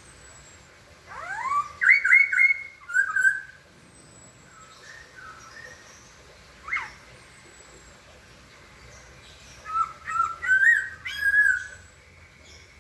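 Poksay (laughingthrush) singing: about a second in, a loud phrase of clear whistled notes that swoop up and then repeat, a single short note near the middle, and another run of whistled notes near the end.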